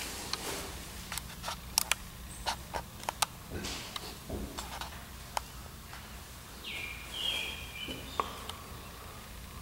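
Scattered sharp clicks and taps over a low steady hum, with a brief high chirping sound about seven seconds in.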